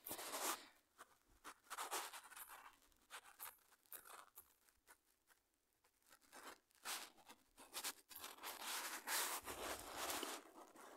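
Faint, irregular rustling and scratching sounds close to the microphone, coming in uneven bursts.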